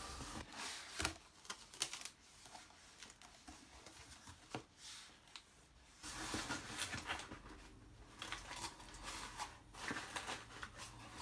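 Small mason jars and their packaging being handled: light clicks, taps and rustling, busier from about six seconds in.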